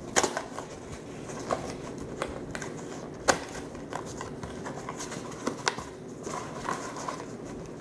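Small cardboard blind box being handled and turned over on a tabletop: scattered taps and clicks, one sharper knock about three seconds in, with soft rustling of card between them.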